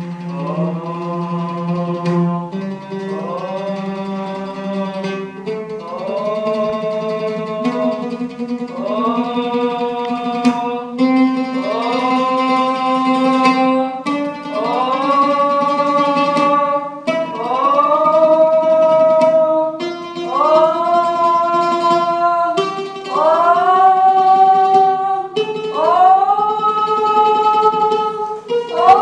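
Oud notes plucked one at a time, each answered by a man singing the same pitch and sliding up into it. The notes climb step by step, about one every three seconds, in a vocal-range test.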